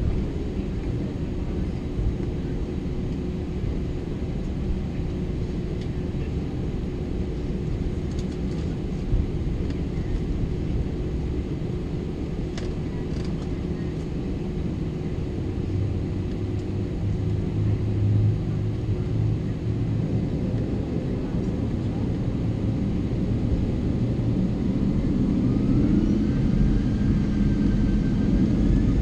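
Cabin noise of an Airbus A321 taxiing onto the runway: a steady low rumble. In the last several seconds the engines spool up for takeoff, with a whine rising in pitch and the rumble growing louder.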